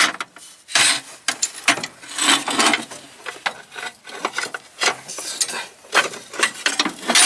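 Hand-tool work on the bolts of a T-40AM tractor's floor panel: about a dozen short, irregular rasping and scraping strokes.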